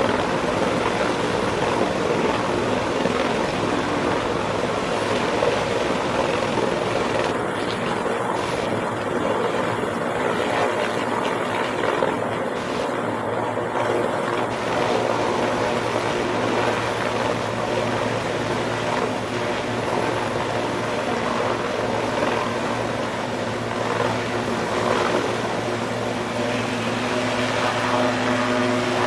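Helicopter taking off, its engines and rotor running steadily and unbroken as it lifts off and hovers.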